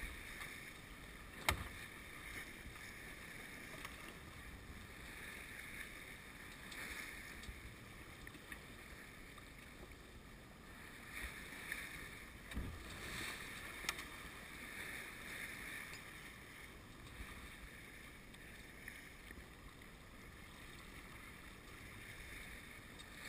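Steady rush of wind and water along the hull of a Grand Surprise sailing yacht under way under mainsail and spinnaker, with a sharp knock about a second and a half in and a few smaller knocks later.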